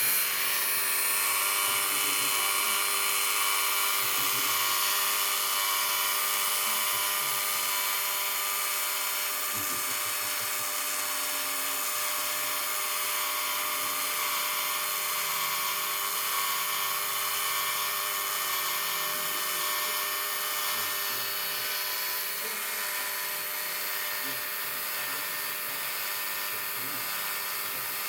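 Milwaukee M18 cordless caulk gun's electric motor and plunger drive running steadily at its highest speed setting, a continuous high whine as it pushes caulk out through the clear barrel.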